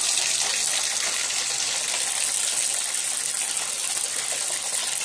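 Bathtub tap running, water pouring steadily into the tub as it fills: an even, unbroken hiss.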